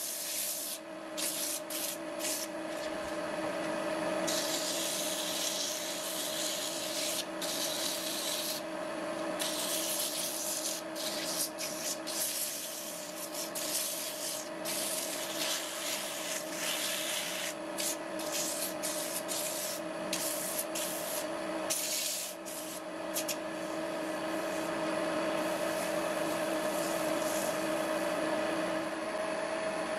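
Sandpaper on a pad rubbing against a wooden workpiece spinning on a wood lathe: a hissing scrape that comes and goes as the pad touches and lifts, over the lathe's steady motor hum.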